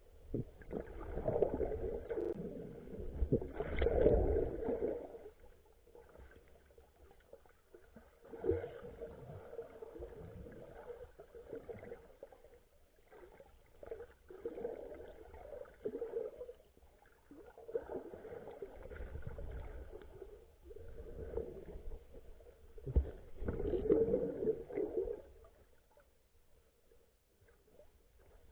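Muffled seawater sloshing and gurgling, swelling and fading in surges every few seconds.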